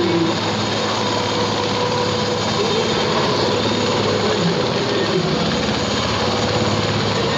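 Military transport helicopter hovering low overhead: a steady, loud rotor and turbine din with a constant whine.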